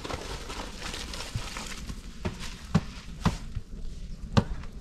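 Raw rice pouring from a plastic bowl into a large pot over a wood fire, a hissing rush in the first second or so, followed by four sharp knocks, the last the loudest.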